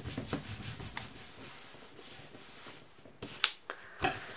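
Hands rubbing and smoothing freshly glued paper flat against an envelope: a dry swishing rub of palms and fingers on paper, with a couple of sharp paper clicks near the end.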